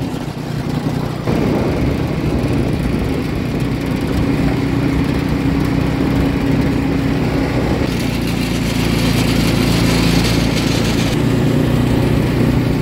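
Small petrol engine of a mini buggy running steadily while driving along, getting louder about a second in.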